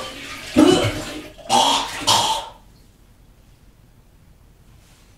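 A person coughing: three short coughs within about two seconds, the last two close together, then quiet.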